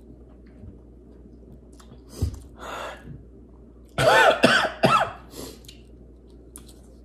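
A man clearing his throat and then coughing hard, about three quick loud coughs some four seconds in: a reaction to the heat of hot mustard.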